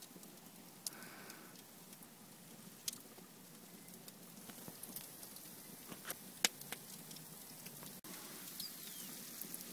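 Fire crackling faintly in a pizza oven: a steady low hiss with a handful of sharp pops and clicks scattered through it.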